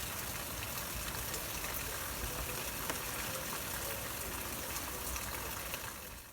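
Heavy downpour of rain, a steady dense hiss, with gusty wind buffeting the microphone as a low rumble. It fades out near the end.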